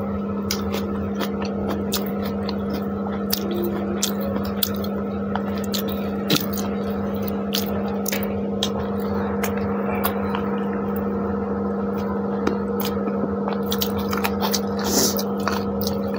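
Close-miked eating of chicken pulao by hand: chewing, lip smacks and rice squished between fingers, in many short clicks. A steady hum runs underneath throughout.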